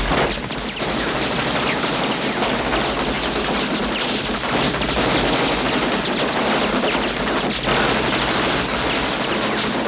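Rapid, continuous gunfire from several guns, the shots running together without a break.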